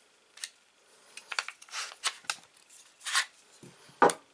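Handling noise from a pistol being gripped and shifted in the hands: several short scrapes and rubs, with a sharper knock about four seconds in.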